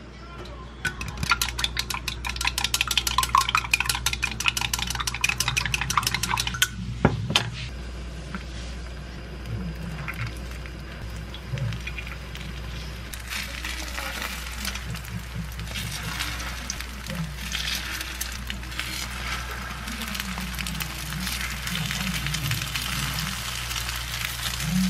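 Chopsticks beating an egg in a glass mug, a fast clicking rattle of wood on glass lasting about six seconds and ending in a single knock. From about halfway on, egg-coated tofu sticks sizzle in an oiled frying pan as they are laid in and turned.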